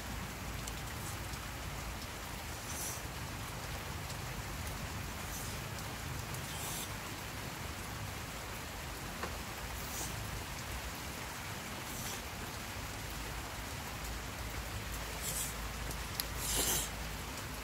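A steady hiss with a few brief, soft rustles now and then.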